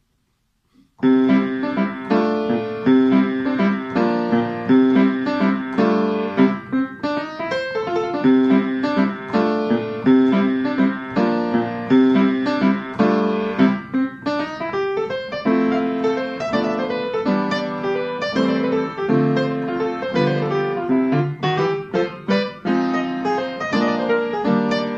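Solo piano playing a swing-style piece in swung eighths: left-hand bass notes under short right-hand chords, with quick melodic runs. It starts about a second in.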